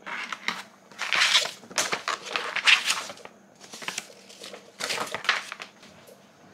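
Folded paper instruction leaflet rustling and crinkling as it is unfolded and handled, in several short bursts over the first five seconds or so.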